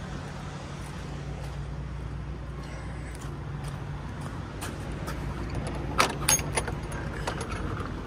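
Semi-truck diesel engine idling with a steady low hum, and a few quick metallic clinks about six seconds in.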